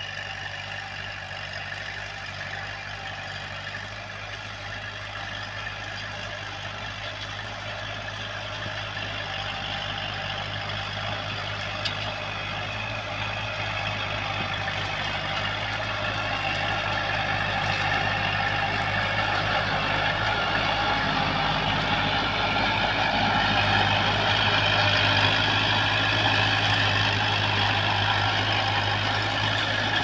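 Diesel engine of a Kubota tractor running steadily under load while pulling a disc plough, growing louder as the tractor draws near.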